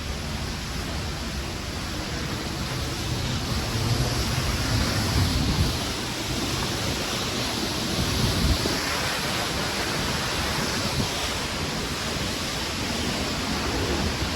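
Waterfall rushing in a steady, even roar, with an uneven low rumble of wind on the microphone.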